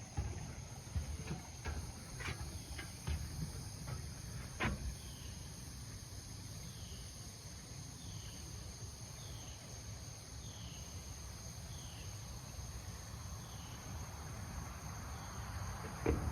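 Riverside ambience: a steady high insect drone, with a bird repeating a short falling note about every second and a bit through the middle of the stretch. Under it is a low rumble of wind or handling, with a few clicks and knocks in the first few seconds.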